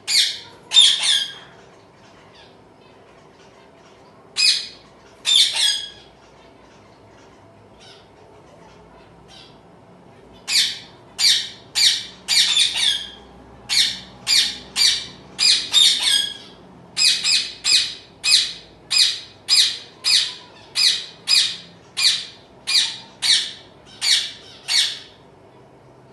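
Young zebra finches giving short, harsh calls: a few in pairs at first, then a run of about two calls a second for most of the rest, over a faint steady hum.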